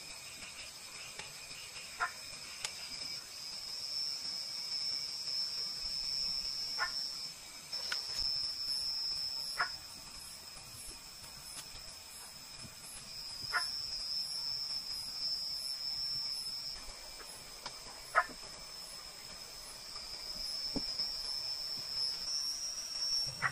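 A night chorus of crickets and other insects: a steady high trill that swells and fades in long waves. A few sharp clicks stand out every few seconds.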